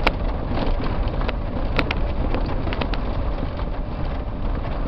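Cab noise of an electric Ford Courier pickup driving over a potholed, rocky dirt track: a steady rumble of tyres and suspension on the rough surface, with a few sharp knocks, one at the start and two close together just under two seconds in.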